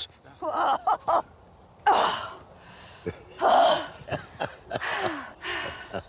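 A woman gasping and panting with effort in short bursts about every second and a half as she swings the starting handle of a Fordson tractor; the engine does not fire.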